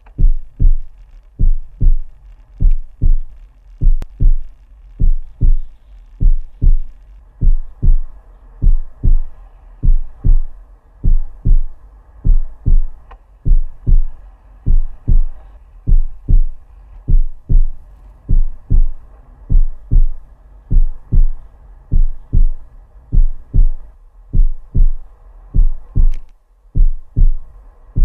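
Heartbeat sound effect: paired low thumps, lub-dub, repeating steadily about once a second.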